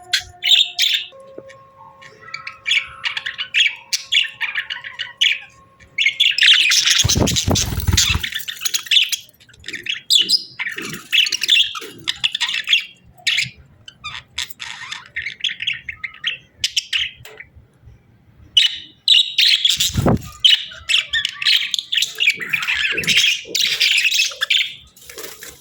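Budgerigars chirping and chattering in a busy, continuous stream of quick high chirps. Twice, about seven and twenty seconds in, a louder rustling burst with a low rumble rises under the chirping.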